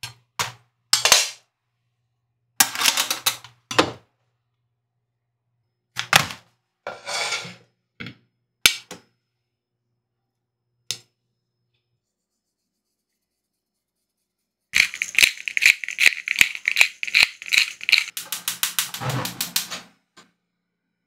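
Short, separate kitchen handling noises, then a rapid run of sharp clicks lasting about three seconds near the end.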